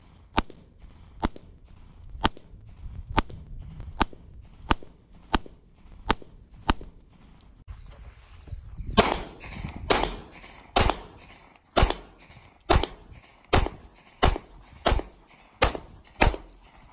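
Shots from a 9mm Glock 19 pistol fired in steady strings, roughly one shot a second or a little faster. The shots from about nine seconds in are louder and ring out longer.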